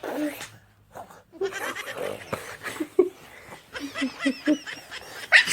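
A two-year-old boy imitating his father's snoring: noisy, breathy snore-like sounds, then a quick run of short, low vocal grunts about four seconds in.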